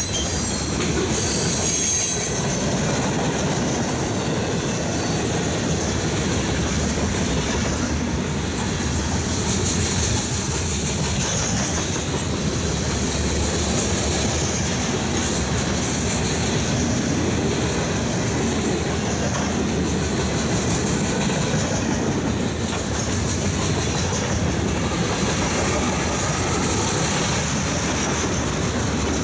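Freight train of tank cars and covered hoppers rolling past close by: a steady rumble of steel wheels on rail with a high squeal from the wheels and a running clatter over the rail joints.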